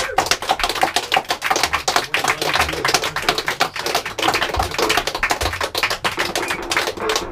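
Small audience applauding: a dense, irregular patter of hand claps in a small room.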